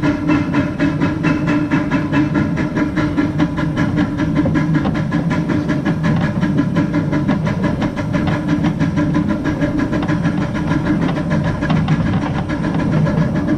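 Small 0-4-2T steam tank locomotive under way, heard close up from on board: a fast, even beat with steam hissing over it.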